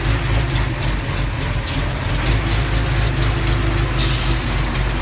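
Heavy vehicle engine running steadily at a low drone, with a few short hisses, the strongest about four seconds in.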